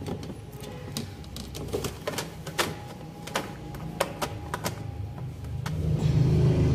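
Irregular plastic clicks and knocks as the perforated plastic lid of a twin-tub washing machine's spin-dryer tub is set in and pressed down inside the drum. A low rumble builds near the end.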